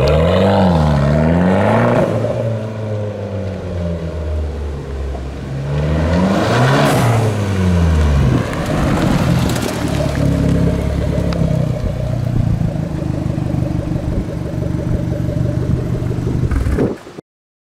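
Fiat 500 Abarth's 1.4 turbocharged four-cylinder through a tuned exhaust, its pitch swinging up and down twice as the car drives about, loudest as it passes close, then running steadily up close to the exhaust tips. The sound cuts off suddenly near the end.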